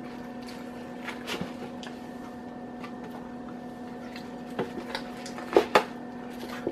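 Hands working stuffing into a raw turkey's cavity in a disposable aluminium foil roasting pan: soft squishing with a few sharp crinkles and clicks from the foil pan, the two loudest close together near the end. A steady low hum runs underneath.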